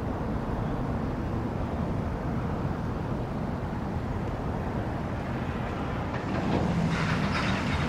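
Steady low rumble of vehicle noise, with a faint hum and light clatter coming in near the end.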